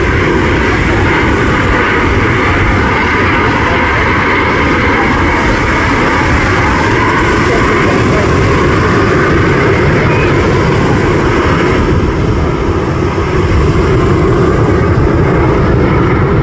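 A formation of Canadair CT-114 Tutor jet trainers flying past, their turbojet engines making a steady, continuous jet noise.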